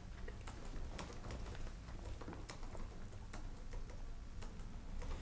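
Faint, irregular key clicks of typing on a keyboard over a steady low room hum.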